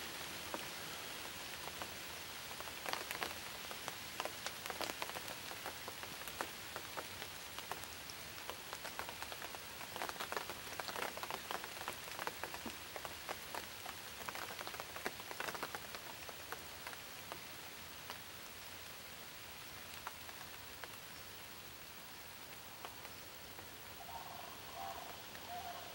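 Steady rain falling, with many close drops ticking irregularly, thickest in the first half and easing off later.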